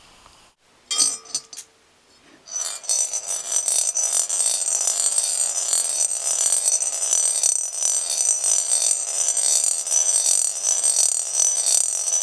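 Toy gumball machine with a plastic gumball clattering and clinking as it swirls around the spiral track, starting about two and a half seconds in and running on steadily. A short clink comes about a second in.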